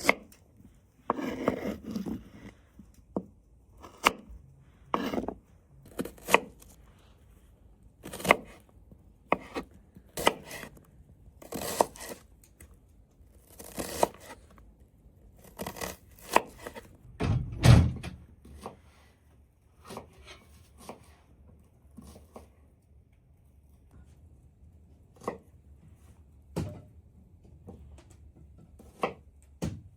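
Irregular knocks, thuds and short scraping sounds of handwork, a few seconds apart, with a heavier thud about eighteen seconds in.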